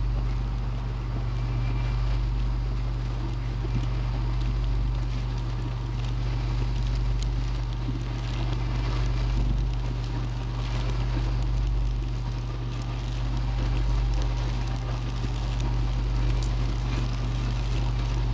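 Low steady hum of a spinal disc therapy machine running, its loudness swelling and easing every couple of seconds.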